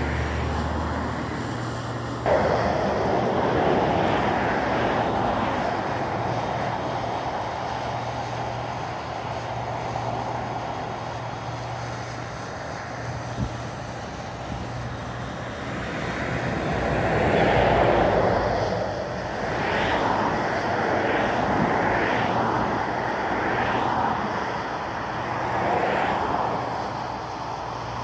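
Road traffic on a busy main road: vehicles passing one after another, several in quick succession in the second half, over a steady low hum.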